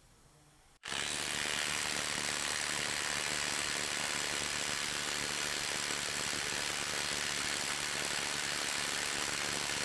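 Milwaukee M18 Gen 3 impact driver, converted to a half-inch anvil impact wrench, starts hammering about a second in. It runs on as an even, unbroken rattle in reverse against a torque tester's load for a ten-second max-torque run.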